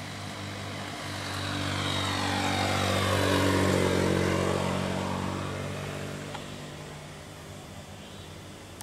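Vehicle engine running steadily, with a vehicle passing close by: the sound swells to its loudest about three and a half seconds in, then fades away.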